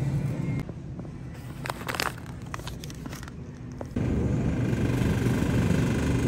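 Grocery store background noise: a low hum with light clicks and clinks of plastic bottles being handled. About four seconds in it steps up to a louder, steady hum beside an open refrigerated dairy case as a yogurt tub is taken off the shelf.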